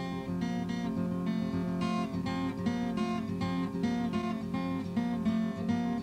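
Background music: a guitar strummed in a steady rhythm.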